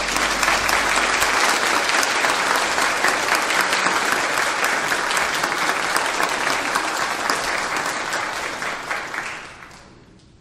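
Congregation applauding: a dense, steady round of clapping that tapers off and dies away near the end.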